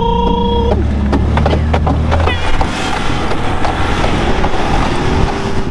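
Vehicle engine running hard while it drives through deep snow, heard from inside the cab. It is strongest for the first two seconds or so, then eases. Repeated knocks and rattles come from the body jolting over the rough ground.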